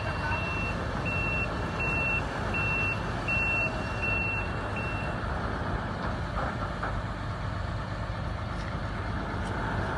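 Crane warning beeper sounding while a container is hoisted: a high-pitched tone that breaks into short repeated beeps, a little over one a second, and stops about halfway through. A steady low machinery rumble runs underneath.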